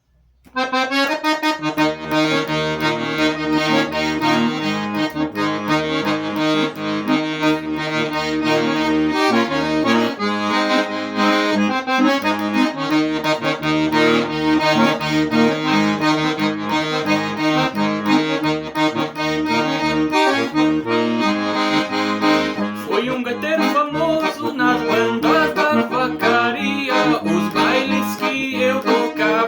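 Accordion played in a lively traditional style, which the player says has a hole in its bellows. Steady pulsing bass notes run under held chords and a melody, starting about half a second in. The melody becomes busier about two-thirds of the way through.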